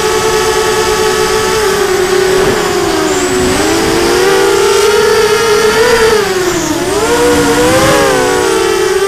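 The four brushless 2204 2300kv motors of a Blackout Mini H quadcopter on 4S run close to the onboard camera. Their hum dips and rises in pitch several times and splits into separate tones as the throttle and attitude change in flight.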